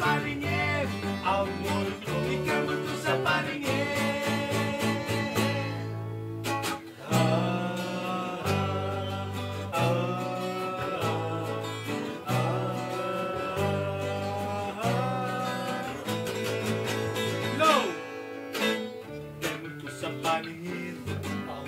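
Two acoustic guitars and an electric bass guitar playing a song together, with a man singing over them. The bass notes move in steps under the strummed chords.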